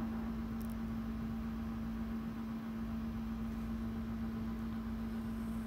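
A steady low-pitched hum with a faint hiss behind it; no beading sounds stand out.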